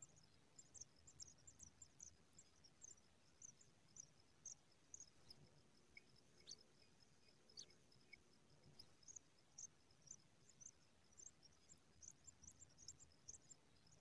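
Faint, rapid, thin high-pitched chirping from pipit nestlings begging in the nest. The chirps thin out in the middle and pick up again toward the end.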